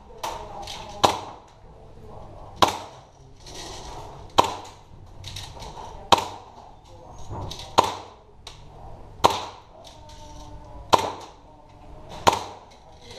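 Hi-Capa 5.2K gas blowback airsoft pistol firing single shots at a slow, even pace, about eight shots roughly every second and a half to two seconds, with fainter clicks between them.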